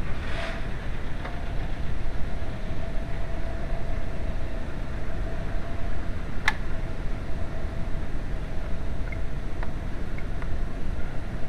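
Car engine running steadily with a low rumble and a faint steady whine, with one sharp click about six and a half seconds in.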